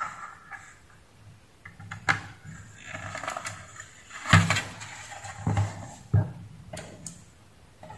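Handling of a plastic wireless router on a bench: a DC power plug is pushed into its jack and the router is turned over, giving a few short knocks and clicks, the loudest a little past the middle.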